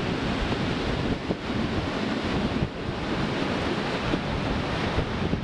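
Wind rushing and buffeting over the microphone at the open window of a moving train, a steady rushing noise with the train's low running rumble underneath.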